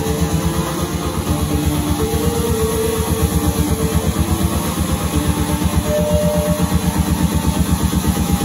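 Techno played loud over a club sound system: a rapidly pulsing bassline, with held synth tones over it that drop away about halfway through.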